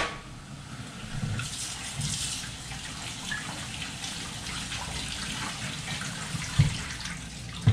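Kitchen tap running into a stainless steel sink while dishes and a colander are rinsed under it. Two short knocks of dishware against the sink come near the end.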